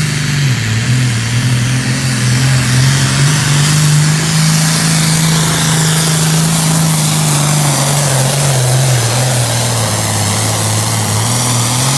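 John Deere 5010 pulling tractor's diesel engine running hard at full throttle under the load of the pulling sled. Its pitch drops a step early on, holds, and then sags lower near the end as the sled's weight bogs it down.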